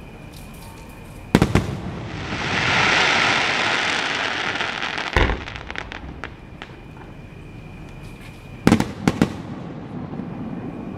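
Aerial fireworks going off: a couple of sharp bangs about a second in, then a hissing crackle that swells and fades over the next few seconds, another bang near the middle, and a quick group of three bangs near the end.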